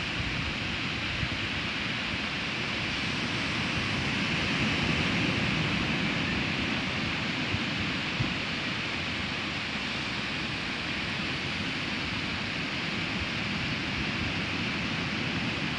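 Low ocean waves breaking and washing up a sandy beach: a steady rushing surf that swells slightly a few seconds in. Wind buffets the microphone underneath it.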